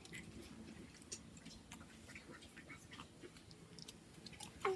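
Faint eating sounds of children at a meal: small scattered clicks and taps of chewing and handling food and utensils. A short, high squeak is the loudest sound, near the end.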